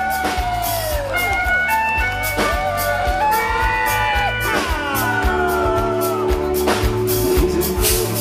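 Live country band playing an instrumental intro: a pedal steel guitar's sliding melody over acoustic guitar, bass and drums.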